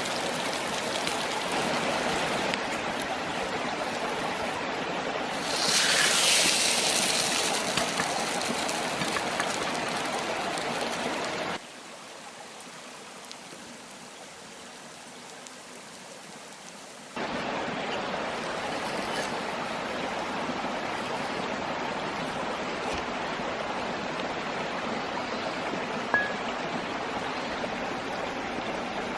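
Mountain stream flowing: a steady rush of running water, with a louder, hissier swell about six seconds in. For about five seconds in the middle it drops much quieter, and a single click comes near the end.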